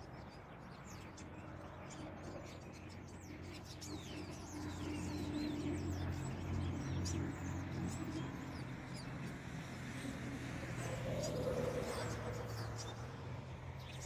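A flock of small songbirds calling from a tree: many short, overlapping high chirps throughout. Underneath runs a low, steady hum that swells in the middle and again near the end.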